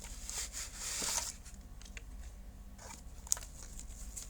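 Packaging of a writing tablet being opened by hand: a short tearing, crinkling noise about a second in, then quieter handling clicks, with one sharp click a little after three seconds.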